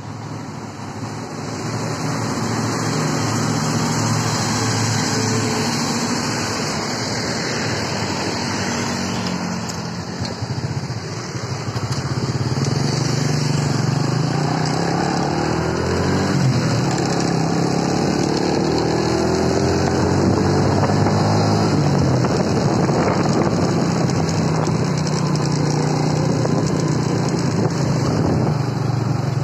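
Road traffic: a heavy truck's engine running close by amid motorcycles and cars, with engine notes rising and falling as vehicles speed up and slow down.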